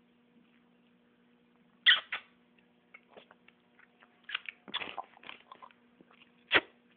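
Short, irregular mouth and throat noises from a person who has just gulped a drink: a loud one about two seconds in and a cluster of them around four to six seconds, with a sharp knock near the end.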